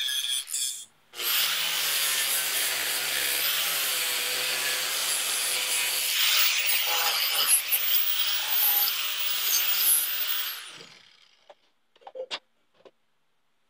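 DeWalt angle grinder with a red abrasive disc grinding down MIG welds on a steel box, a steady grinding hiss that runs for about nine seconds before the grinder winds down. A few short clicks follow near the end.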